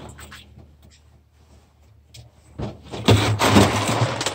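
Dry dog food being scooped from its bag: a few faint rattles, then a loud rush of kibble for about a second near the end.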